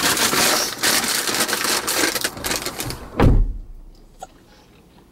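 Rustling and crunching as someone climbs out of a car, then a car door shutting with one heavy thud a little after three seconds in.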